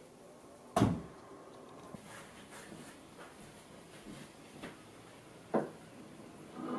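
Knocks of wood being handled: one sharp knock about a second in, then faint handling noises, and a second, smaller knock near the end as a small ceramic bud vase is set down on a wooden chest of drawers.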